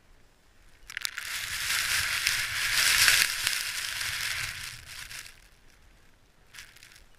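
Crunching, rustling noise from a climber's gloved hands, rope and gear moving in snow, lasting about four seconds, with a brief second rustle near the end.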